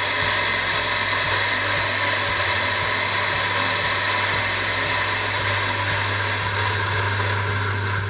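Electric coffee grinder running steadily as it grinds Puro Grinder Cleaning Tablets through its burrs. It makes a continuous motor hum with an even grinding noise over it.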